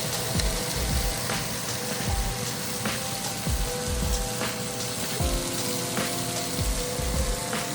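Background music with a steady low beat over a constant crackling sizzle of food cooking.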